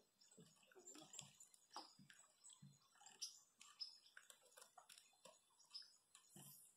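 Near silence, with faint scattered clicks and short high chirps.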